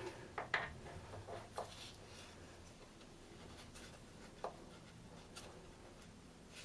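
Small metallic clicks and light rubbing as the layshaft second gear of a Triumph Bonneville five-speed gearbox is slid into place by hand. A cluster of clicks comes in the first two seconds, then two single clicks later.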